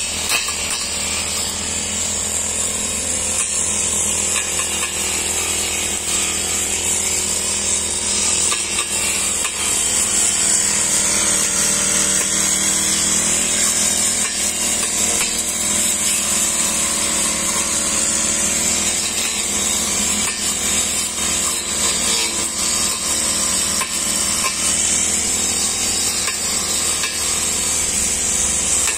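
Petrol brush cutter running at working speed with a metal blade spinning through grass, its blade now and then grazing the concrete curb edge. Steady engine note throughout, with irregular small hits from the blade.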